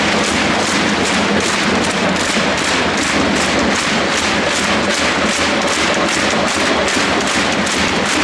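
A packed football stadium crowd making a loud, steady din with rhythmic clapping and drumbeats, about two beats a second.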